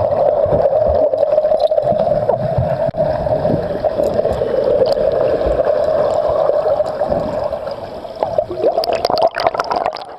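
Water heard underwater through a submerged waterproof camera: a steady muffled rushing and gurgling with scattered clicks. The sound gets busier and more broken near the end as the camera comes up just under the surface.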